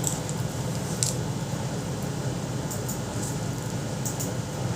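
Steady low background hum of a fan or air-conditioning kind, with a few faint light clicks from hands working foam clay into a plastic sticker mould.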